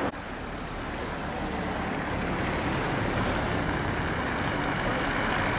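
Steady motor-vehicle and street-traffic noise, slowly getting louder.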